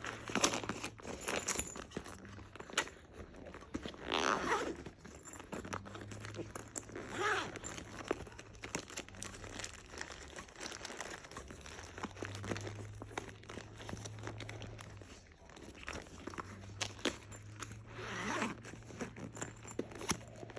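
Small items and their packaging being handled and packed into a bag and pouches: rustling, light clicks and knocks, with several short zipper pulls.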